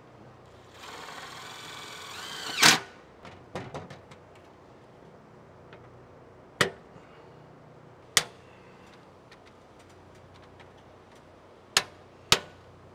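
Cordless DeWalt driver runs for about two seconds driving a mount screw, its pitch rising just before it stops with a loud click. Then a handful of sharp single plastic clicks, a second or more apart, as the LED light bar is snapped into its mounts.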